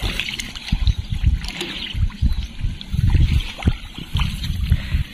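Wind buffeting the microphone, heard as irregular, loud low rumbling gusts.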